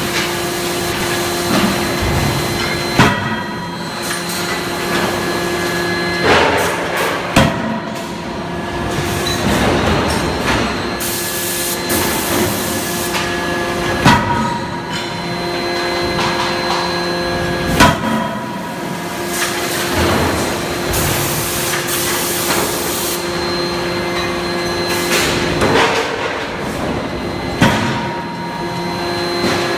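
Anyang C92K-31.5KJ CNC hydraulic die forging hammer striking hot steel automobile forgings, with a sharp blow every few seconds over the steady hum of its hydraulic drive. A few longer hissing bursts come in between the blows.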